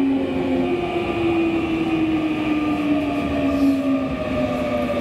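Nankai 9000-series electric train's VVVF inverter and traction motors humming in several tones that slide slowly down in pitch as the train slows, over steady wheel and track rumble, heard from inside the motor car.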